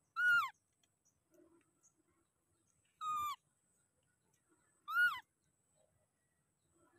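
Infant macaque giving three short, high-pitched calls a couple of seconds apart, each dropping in pitch at its end.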